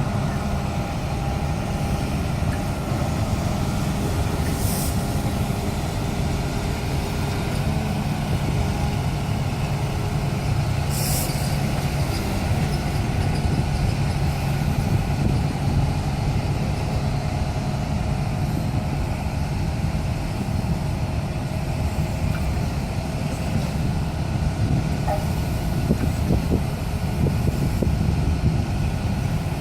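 Daedong DPD850T hydraulic vibratory pile driver on a Volvo EC480 excavator, running steadily with a heavy low drone as it drives a steel sheet pile. Two short hisses come about five and eleven seconds in.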